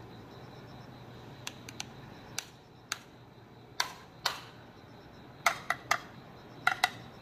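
Irregular sharp clicks from a hand working at the pavement's edge, about a dozen, some in quick pairs and triples. The loudest come in the second half.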